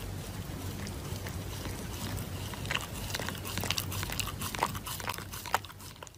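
A Shiba Inu chewing and biting at a piece of paper held in its paws, with irregular crinkling bites that come thicker in the second half, over a steady hiss.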